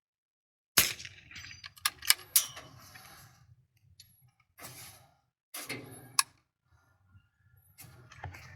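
A sudden sharp crack about a second in, then a run of clicks, knocks and rustles with short gaps, with two more sharp peaks around two seconds and six seconds in: a bolt-action .22 rimfire rifle being fired and its bolt worked.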